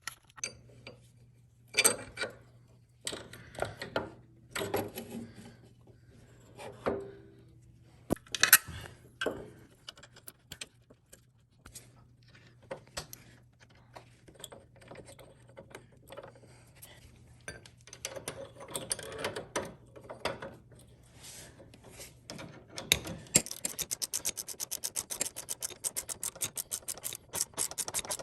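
Hand tools and metal motorcycle floorboard hardware being handled, with scattered clinks, scrapes and rubs as the floorboard and clamp are fitted. Near the end a ratchet wrench clicks rapidly and evenly as a mounting bolt is run in.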